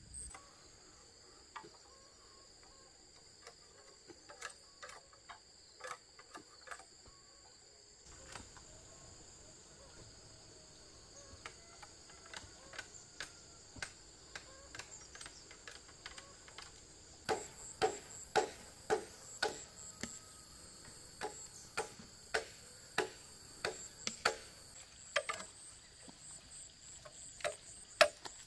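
Machete chopping bamboo poles: sharp knocks, scattered at first, then louder and coming in quick succession over the last ten seconds or so. Insects chirr steadily and high-pitched underneath.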